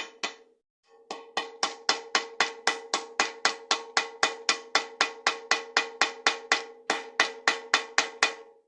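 Hammer tapping on metal to drive a sealed cartridge bearing in the bicycle hub, about four sharp ringing taps a second, with a short pause near the start.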